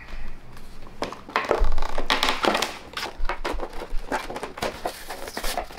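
Clear plastic blister packaging of a toy monster truck being pried off its cardboard card by hand: an irregular run of crackling, crinkling plastic with sharp snaps.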